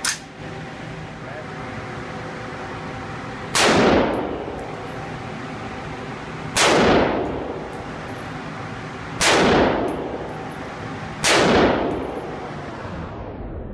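Four single rifle shots from an AR-15-style semi-automatic rifle, spaced two to three seconds apart, each ringing briefly in the reverberant concrete range bay. A short sharp click comes right at the start.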